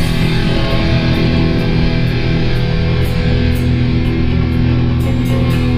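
Punk rock song in an instrumental break between sung verses: distorted electric guitars playing steadily over regular drum hits.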